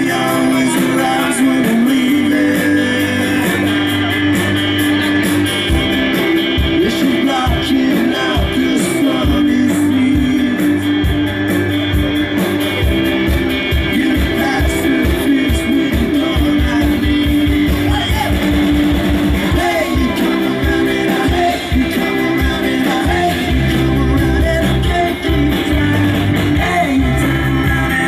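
Live rock band playing: a man singing into a microphone over acoustic guitar, electric guitar and a drum kit.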